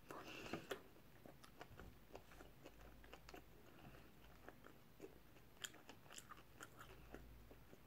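Faint chewing of a salt and pepper rib, with scattered small mouth clicks and smacks.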